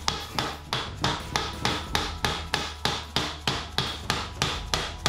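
A hammer tapping fast and evenly, about three to four taps a second, driving a new plastic hyfax wear slide along a snowmobile skid rail.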